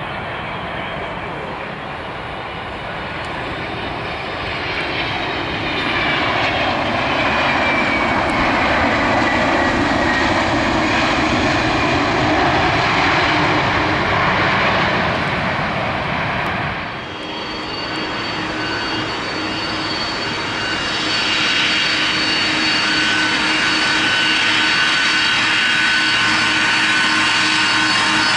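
Boeing 767-300ER jet engines passing close by: a loud jet noise with a whine that glides down in pitch. After a sudden break about two thirds of the way in, the engines run steadily with several high fan whines held at fixed pitch.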